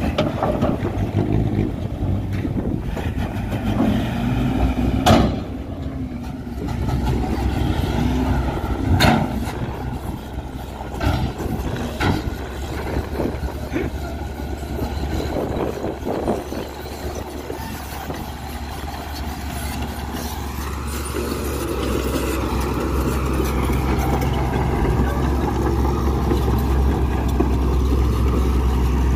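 Diesel engines of heavy earthmoving machinery running: a dump truck tipping its load of soil, then a Komatsu crawler bulldozer, with a few sharp knocks in the first half. A deep engine rumble grows louder over the last third.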